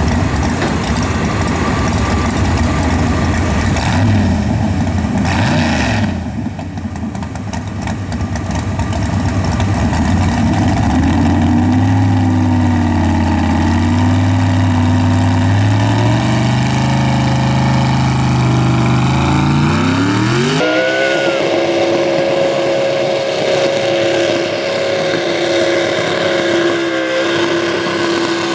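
Big-block high-output pulling truck's engine running loud at high revs under load on a pull, its pitch climbing steadily through the middle. About two-thirds of the way in the sound changes suddenly to a steady, held high engine note.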